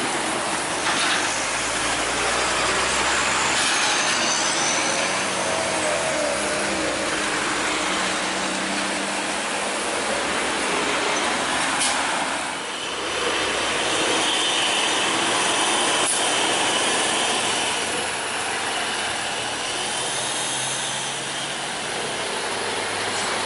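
Heavy trucks driving past close by: steady diesel engine and tyre noise, with thin high squeals now and then. The sound changes abruptly about halfway through.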